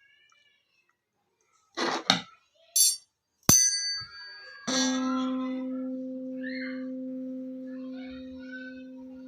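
A few handling knocks and a sharp metallic clink, then a tuning fork is struck and rings a steady low pure hum near middle C with a faint octave overtone, slowly fading.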